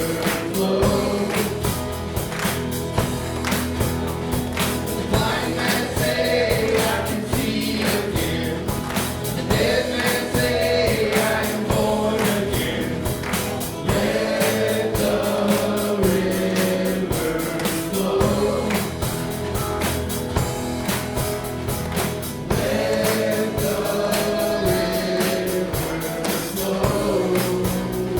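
Live praise-and-worship music: a band with a steady drum beat under a group of voices singing together.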